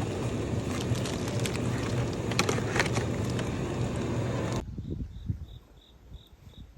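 Steady road and engine noise from a moving car, with a low hum and a few light clicks. It cuts off abruptly about four and a half seconds in to a much quieter scene, where a faint high chirp repeats about three times a second.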